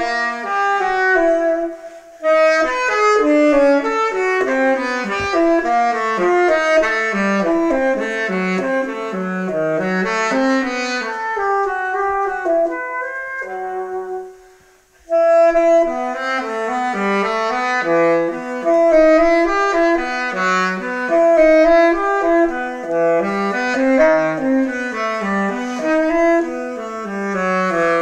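Solo saxophone playing a baroque dance movement unaccompanied, a single line of quick moving notes. The line breaks off briefly about two seconds in and pauses near the middle before picking up again.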